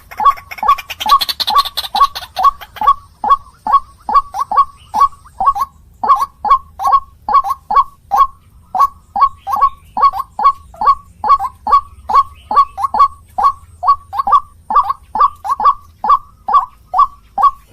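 White-breasted waterhen (ruak-ruak) calling: a long, steady series of short, repeated notes, about three a second, with a brief break about six seconds in.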